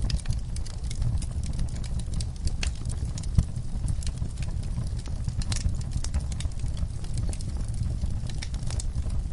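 Wood logs burning in a fireplace, crackling and popping irregularly over a low rumble of the flames, with one sharper pop about three and a half seconds in.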